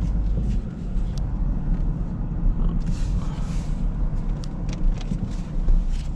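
Jeep running with a steady low rumble, with a few light clicks and a short hiss about three seconds in.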